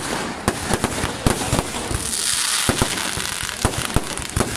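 Fireworks going off in a rapid, irregular string of sharp bangs, with a dense hissing crackle about two seconds in.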